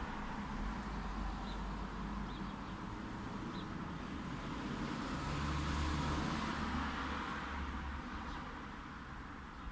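Light road traffic: a steady hiss of tyres and engine rumble, swelling as a car passes near the middle and then easing off. A few faint, short, high chirps sit over it.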